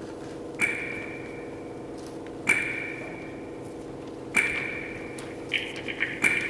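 Sparse music of ringing metallic pings: a single ping sounds about every two seconds over a steady low drone, then a quicker run of higher pings near the end.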